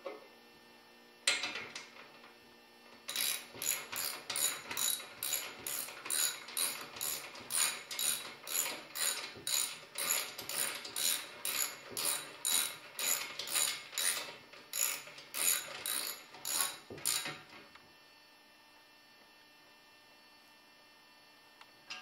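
Hand ratchet wrench clicking in quick, evenly repeated strokes, about two a second, as a lag bolt is turned through the pull-up bar's bracket into a ceiling stud. A single sharp click comes about a second in, and the ratcheting stops a few seconds before the end.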